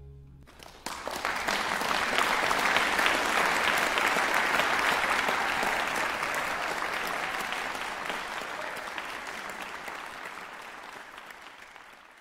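Audience applauding in a reverberant concert hall, breaking out about a second in as the last string chord dies away, swelling quickly and then slowly fading.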